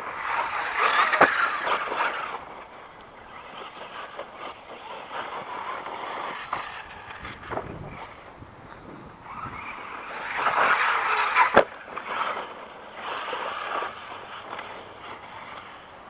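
Arrma Outcast 6S electric RC stunt truck driving over loose sand, its motor and tyres churning the sand. There are two loud surges, one about a second in and one about ten seconds in, each with a sharp knock, and quieter passes between.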